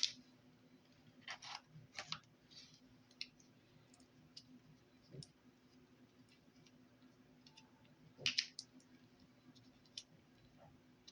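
Scattered light clicks and taps of plastic Play-Doh molds and tools being handled, the loudest at the start, around one to two seconds in and around eight seconds in, over a faint steady hum.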